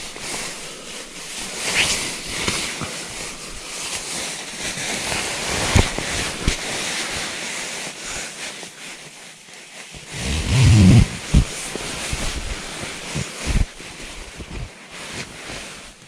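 Fabric rustling close against the microphone, a steady wash of noise with scattered soft clicks, and a burst of low rumbling thumps about ten to eleven seconds in.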